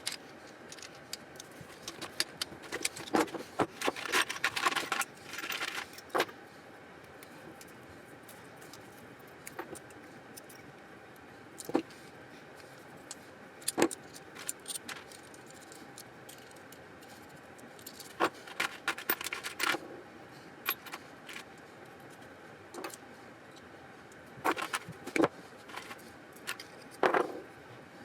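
Small metal parts clinking and rattling against each other in several short bursts of handling, with quieter pauses between.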